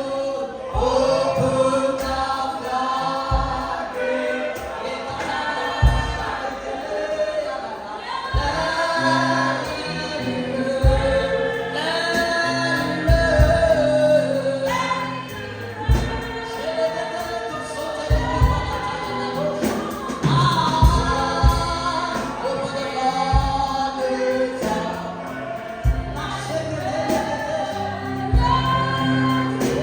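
Gospel choir and congregation singing with a band behind them, a steady bass and drum beat under the voices.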